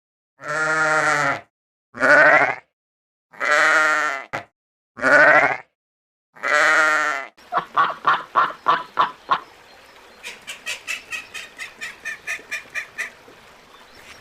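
A goat or sheep bleating five times, each call wavering in pitch. This is followed by a long run of quick repeated calls, about five a second, which become higher-pitched and run on until near the end.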